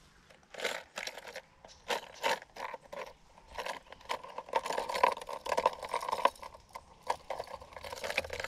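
Hard plastic fishing lures clicking and rattling against each other and against a plastic tackle box as it is rummaged through, with repeated short clicks and scrapes.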